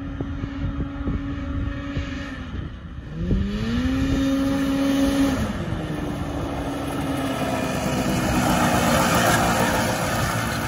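Snowmobile engine of a homemade dune buggy running hard: it holds a steady pitch, dips about two and a half seconds in, then revs up in a rising sweep and holds before falling off again about halfway through. Toward the end a rushing, gravelly noise of tyres on the loose dirt grows as the buggy nears and slides around.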